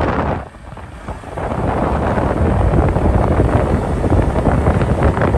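Wind rushing over the microphone of a camera on a moving motorcycle, a dense low rumble with no clear engine note. It drops away briefly about half a second in, then builds back up and stays steady.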